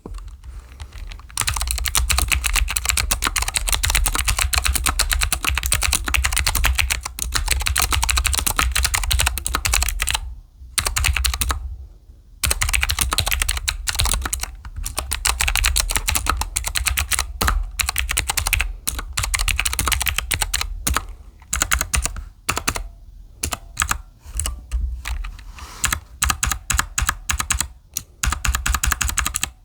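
Fast typing on a mechanical keyboard with round typewriter-style keycaps, a dense run of key clacks broken by a pause of about two seconds a third of the way in, then resuming in shorter stop-start bursts.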